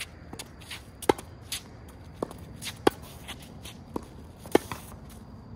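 Tennis ball struck back and forth with rackets in a quick volley rally: sharp pops with a brief ring, the three loudest about a second and a half to two seconds apart, with fainter knocks between them.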